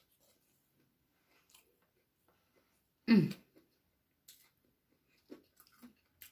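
Close-miked chewing and soft mouth clicks of someone eating a fish sandwich, with one brief loud voiced sound, falling in pitch, about three seconds in.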